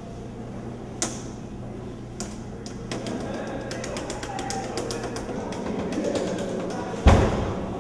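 Vending machine keypad buttons clicked, first a few single presses, then many quick presses in a rapid run, over a steady low hum. Near the end comes one loud thump.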